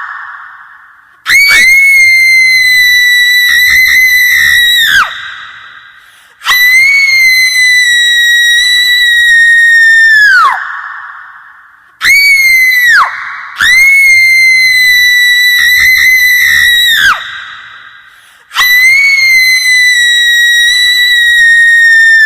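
Horror ringtone: a high-pitched shriek sound effect repeating over and over. Each shriek cuts in suddenly and is held for a few seconds, and several slide down in pitch as they fade out.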